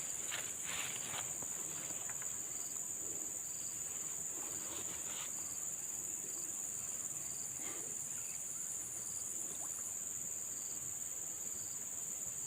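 Steady, high-pitched chorus of insects, with a fainter pulsing call repeating beneath it.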